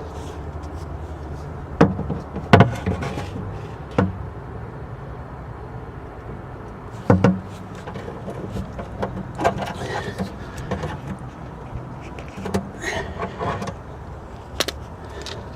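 Hand tools clacking on metal as a heavy-duty terminal is crimped onto a flexible battery cable: a few sharp clicks and knocks in the first half, then lighter clattering of handling. A steady low hum runs underneath.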